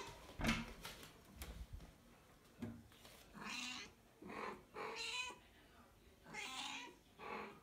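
Mother cat meowing, about five short calls in the second half, calling for her missing kitten. A thump about half a second in.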